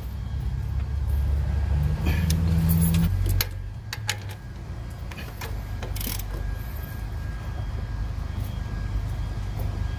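Hand tools on engine-bay bolts: scattered metallic clicks and clinks from a ratchet and a combination wrench. A low steady rumble runs under them for the first three seconds or so, then stops.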